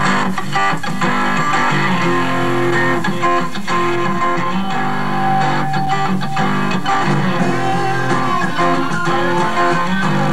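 Live rock band playing, electric guitars over bass guitar notes that change every second or so.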